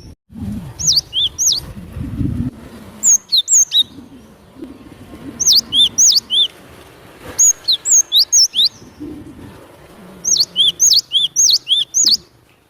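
Cinereous tit (glatik batu) singing: about five bursts of sharp, quickly sliding high notes repeated in quick succession, with short pauses between bursts. A low rumbling background noise sits under the first couple of seconds.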